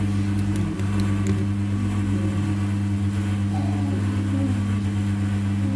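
A steady, low electric hum from a running appliance or motor, unchanging in pitch, with a few faint clicks about a second in.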